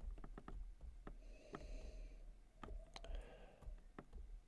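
A man sniffing whisky from a nosing glass: two faint breaths in through the nose, each about a second long, with scattered small clicks.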